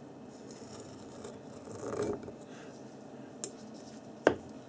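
A thin metal blade scraping and rubbing as it scoops excess epoxy off a steel flywheel rotor's rim, with a louder scrape about two seconds in. A small click and then a single sharp knock come near the end.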